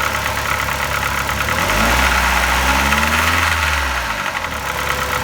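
ZMZ-406 inline-four petrol engine running with the knock its owner is complaining of. It is revved once, about two seconds in, and drops back toward idle about four seconds in.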